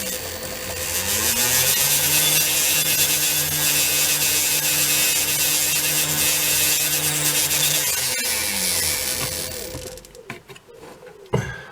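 Small lathe motor spinning up, running steadily with the hiss of a very fine stone rubbing along the spinning blue-steel pivot rod as it is reduced to size, then winding down about eight to ten seconds in. A single sharp knock near the end.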